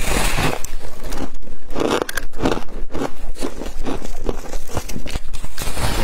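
Bites into a chunk of fluffy freezer frost, crunching and chewing. A dense crunch at the very start is followed by a run of short crunches.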